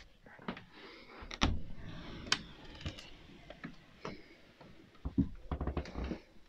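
Handling and movement noise: scattered light clicks and knocks with a few dull thumps and some rustling, as a handheld phone camera is carried through a dark room to a bed.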